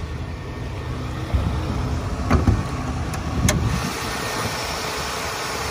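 Infiniti i30's 3.0-litre V6 idling shortly after a cold start while its hood is opened: two sharp clunks in the middle as the hood latch releases and the hood is raised. After that the engine bay's steady hiss comes through louder.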